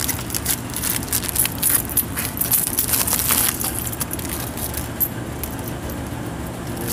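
Loose coins clinking and jingling as they are handled and counted, a quick run of small metallic clicks, busiest in the first few seconds.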